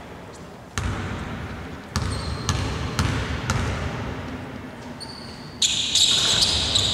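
A basketball bounced on a hardwood court, five times, the last four about half a second apart, each bounce echoing in a large gym: a free-throw shooter's dribble before the shot. Near the end, rubber shoe soles squeak on the court as players move for the rebound.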